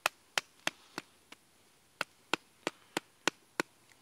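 Wooden baton striking the fatwood set in the cross-split top of a log, knocking it down into the split. The sharp wood-on-wood knocks come about three a second: four, a pause of about a second, then six more.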